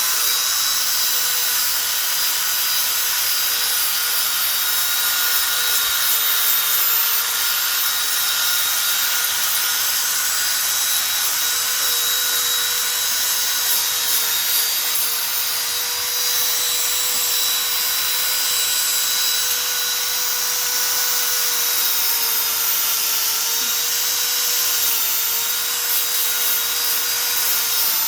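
Electric power sander running steadily against wood, a constant motor whine under the hiss of abrasive rubbing the surface.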